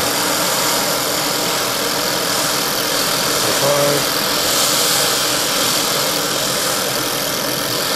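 Small machined model Stirling cycle engine running steadily at speed. A brief voice is heard about four seconds in.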